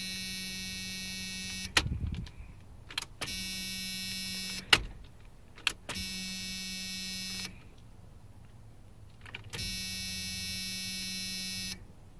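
Electric fuel pump buzzing steadily in four runs of about two seconds each, as the ignition key is cycled on and off to prime a dry fuel rail. Sharp clicks and knocks from the key and switch come between the runs.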